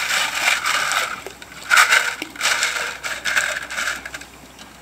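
Wet creek gravel and stones grinding and rattling in a hand-worked sieve on top of a bucket, as the gravel is sieved for gemstones. It comes in several scraping bursts over the first three seconds or so, then eases off near the end.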